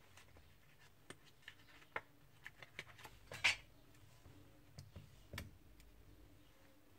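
Faint, scattered small clicks and taps of hands and tools on an iPhone 6 as its screen is pried open with a suction cup and pick, with one louder short scrape about three and a half seconds in.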